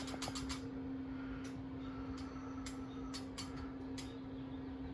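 Steady hum of a running motor, with scattered light clicks and taps.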